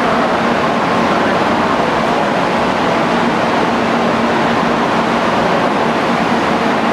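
Shinkansen train noise at a station platform: a steady rushing rumble with a constant low hum, no change in pitch or loudness.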